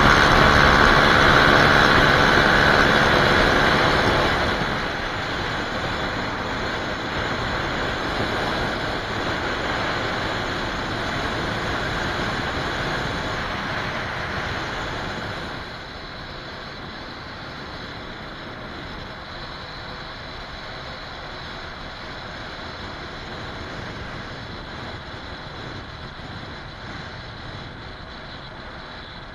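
Motorcycle riding sound picked up by a helmet camera: engine running under wind rush and road noise. It is loudest for the first few seconds, then drops in two steps, about four seconds in and again about halfway through.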